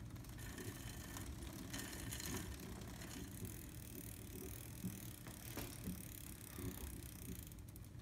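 Scott Contessa Jr 24 kids' mountain bike drivetrain turned by hand on a stand: the chain runs steadily over the chainring and through the front derailleur, with a few light clicks near the middle. The front derailleur is being checked for chain rub after its cable was tightened.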